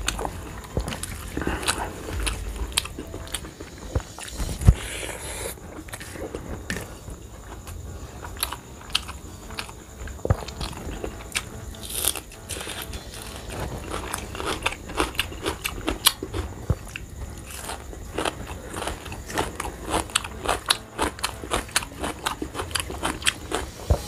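Close-miked chewing and wet mouth sounds of a man eating rice and soft potato-cabbage curry, with many irregular smacking clicks. His fingers also work the rice against a steel plate.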